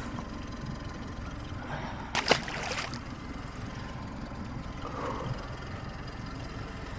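Water sloshing against a fishing boat's hull over a steady low rumble, with a short, louder splash-like burst about two seconds in.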